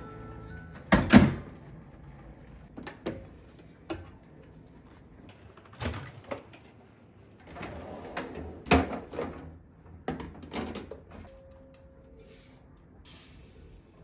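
A string of separate clacks and knocks from a clear refrigerator pull-out drawer being slid open and plastic storage containers being handled. The loudest knocks come about a second in and again about nine seconds in.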